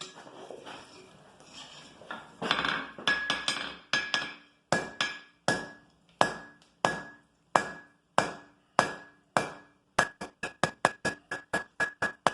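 Blacksmith's hammer striking iron on an anvil, each blow ringing. Evenly spaced heavy blows give way near the end to a quicker run of lighter taps, about three or four a second.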